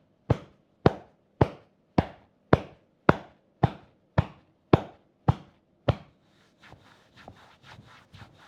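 A hand tapping rhythmically on the upper back, about two sharp taps a second, eleven in all. About six seconds in it gives way to a quicker, quieter patter of light taps.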